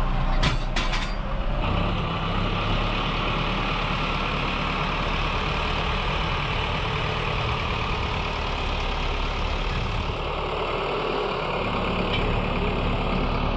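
Farm tractor engine running steadily, with a few sharp clicks about half a second in.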